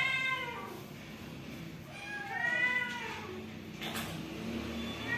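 Young kitten meowing: two calls, one at the start and one about two seconds in, each rising and then falling in pitch, with a third beginning at the very end.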